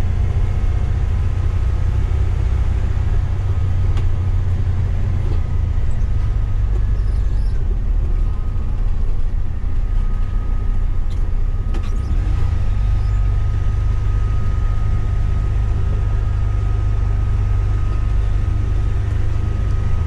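Coach bus driving, heard from the driver's seat: a steady low engine and road drone. A faint steady whine joins about halfway through.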